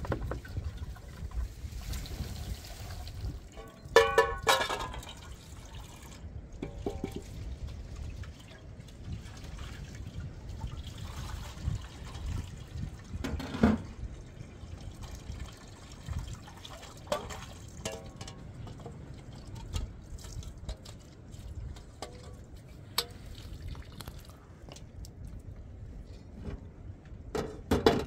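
Water pouring and trickling from a metal water tank as metal dishes are washed, with metal pots and bowls clinking and clattering several times, the loudest clatter about four seconds in.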